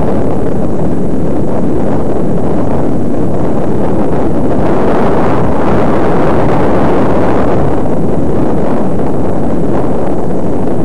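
Loud, steady rumble of wind and road noise on a moving camera's microphone, with no pitch or rhythm to it.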